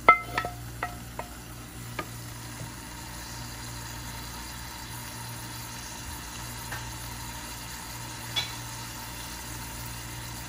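A cooking utensil clinks and scrapes against a frying pan about six times in the first two seconds as fried onion and garlic are tipped into a pot. After that comes a faint steady hiss with a low hum.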